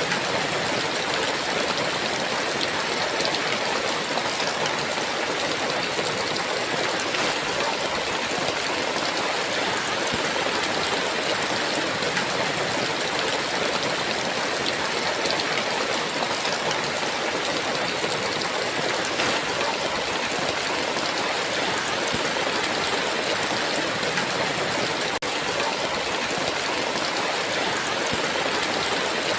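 Heavy rain falling as a steady, dense hiss that does not let up.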